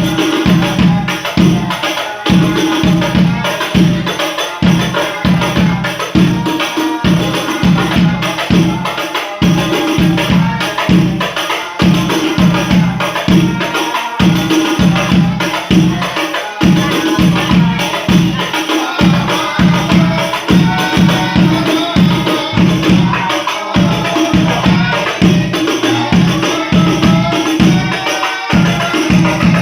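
Sholawat devotional music: rebana frame drums and jingles beating a steady rhythm under voices singing.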